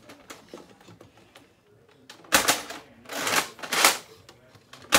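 A Nerf sniper-style foam-dart blaster being primed and fired: sharp plastic clacks about two and a half seconds in, then two longer clattering sounds of the mechanism a little over half a second apart, and another sharp clack at the very end.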